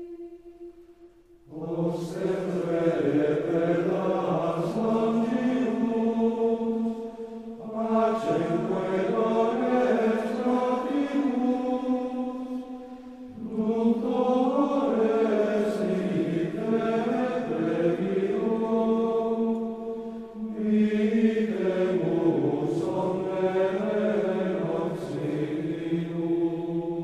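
Background music of chant-like choral singing: sustained voices in four long phrases, each about six seconds, with short breaks between them.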